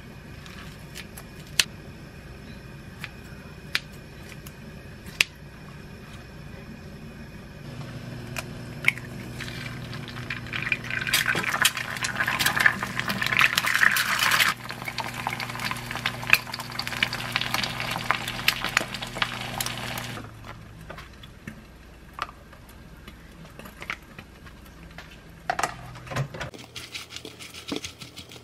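Kitchen scissors snip and clink against a glass bowl a few times. Then two eggs fry in a pan with a sizzling hiss, loudest around a third of the way in, over a steady low hum that stops once the frying ends. Near the end a wooden spoon scrapes and clicks while mixing rice, lettuce and kimchi in the glass bowl.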